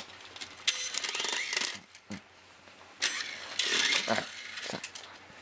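A toy RC helicopter's small electric motor and rotors whirring in two bursts of about a second each.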